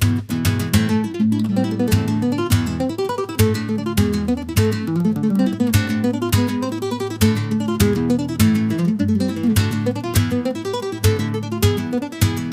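Background music of acoustic guitar, played as a quick run of plucked notes.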